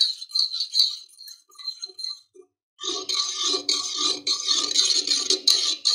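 Metal spoon stirring a milky drink with soaked basil seeds in a steel pot, clinking and scraping against the sides. It starts with light, scattered clinks, stops briefly, then resumes as steady continuous scraping and swishing from about three seconds in.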